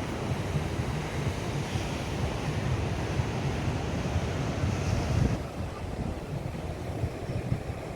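Sea surf washing on a beach under wind buffeting the microphone, with low rumbling gusts. The higher hiss thins out about five seconds in.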